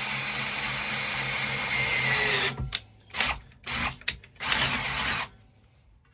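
Cordless drill boring a bolt hole through a steel table saw blade. It runs steadily, its whine climbs just before it stops about two and a half seconds in, and then a few short, separate bursts of noise follow.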